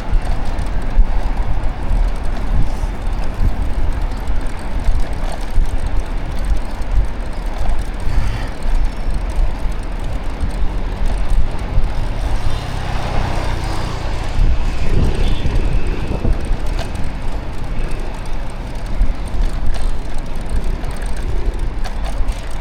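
Street traffic and road noise heard from a moving bicycle: a steady, heavy low rumble throughout, with an engine hum rising briefly about halfway through.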